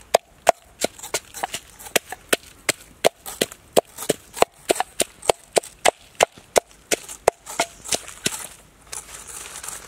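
Wooden pestle pounding garlic cloves in a wooden mortar: a steady knocking about three strikes a second, stopping shortly before the end.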